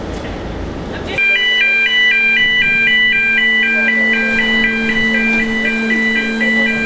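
Ferry bow-door warning alarm: a loud, repeating electronic two-tone signal alternating evenly between a higher and a lower note over a steady low hum, sounding while the bow door closes. It starts about a second in, after a low rumble, and is quite some noise.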